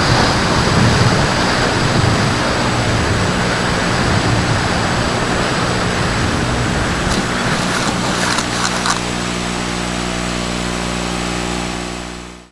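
Wind rushing over an FPV fixed-wing RC plane's onboard camera as it glides in low over grass to land, with a faint high whine that fades within the first few seconds. A quick cluster of clicks and scrapes about seven to nine seconds in marks the touchdown. A steady low hum follows, and the sound fades out at the end.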